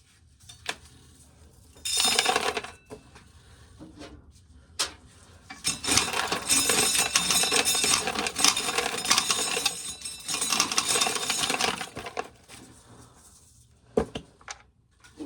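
Dried corn kernels being shelled off the cob, rattling and clattering down into a container: a short burst about two seconds in, then a longer run of dense rattling for about six seconds.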